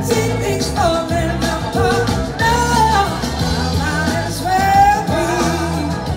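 Live rock band performing: a woman sings lead over electric guitars and keyboards.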